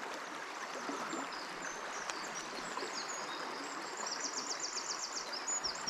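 Water of a small river running over stones as a steady rush, with a songbird chirping high above it and a rapid trill of repeated notes about four seconds in.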